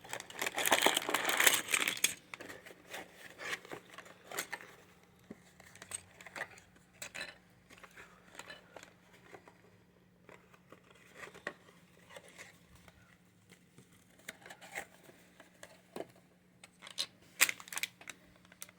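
A LEGO set's packaging being torn open and handled: a burst of tearing in the first two seconds, then scattered crinkling, rustling and small clicks, busier again near the end.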